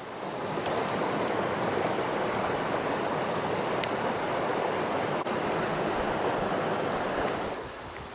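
Running water of a river, a steady rush that swells in just after the start and fades away near the end.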